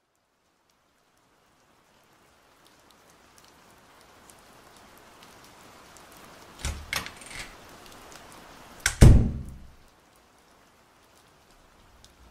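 Sound-effect rain fading in and falling steadily; about halfway through, three knocks on a wooden door, then a single heavy, booming thud about two seconds later, the loudest sound, which dies away within a second.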